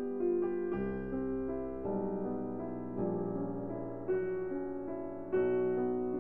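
Background piano music: sustained notes and chords struck about once a second and left to ring.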